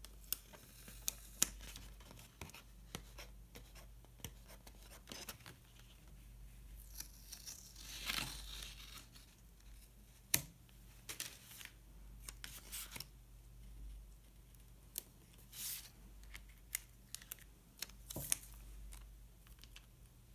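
Faint paper-craft handling sounds: stickers peeled off their backing sheet and paper rustling, with scattered light clicks and taps. There is a longer peeling rasp about eight seconds in and another near sixteen seconds.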